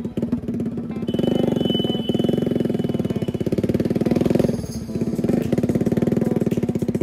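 Single-cylinder Hero HF Deluxe motorcycle running through a home-made tractor-style silencer, giving a loud, rapid exhaust beat while riding in traffic. The beat briefly drops away about four and a half seconds in, then picks up again.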